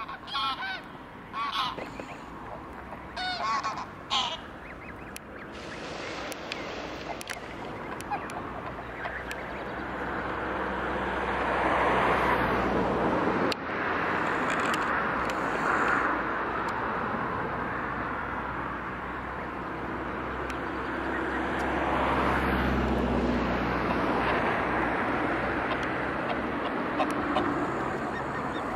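Greylag geese honking, a string of short calls in the first few seconds. After that a long rushing noise with a low hum takes over, swelling twice and louder than the calls.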